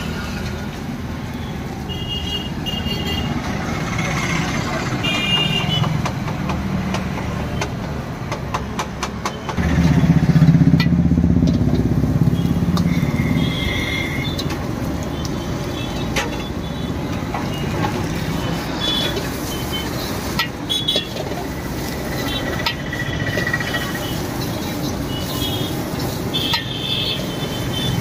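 Busy road traffic: motor vehicles running past, the loudest about ten seconds in, with short horn toots now and then. A run of sharp clicks from the steel ladle striking the iron wok during stir-frying comes just before the loudest vehicle.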